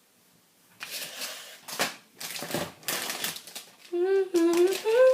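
Rustling and crinkling as food and packaging are handled, with a few sharp clicks. From about four seconds in, a woman hums a tune in held notes.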